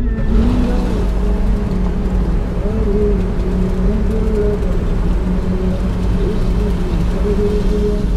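Car driving on a rough mountain road, heard from inside the cabin: steady engine drone over heavy road rumble, the engine note shifting slightly up and down.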